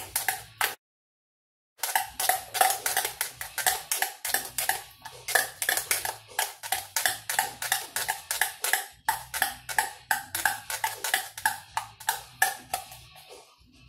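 Knife chopping black olives inside their open tin can, the blade clicking rapidly against the can's metal at about four to five strikes a second. The chopping stops briefly about a second in, then dies away near the end.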